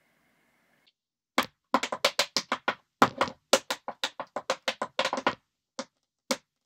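Tap shoes' metal taps striking a wooden floor in a quick rhythmic tap-dance phrase, starting about a second and a half in, followed by two single taps near the end.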